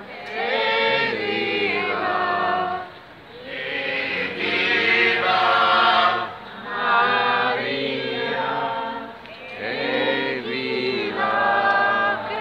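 Procession crowd singing a religious hymn together as they walk, in long phrases with brief pauses for breath about every three seconds.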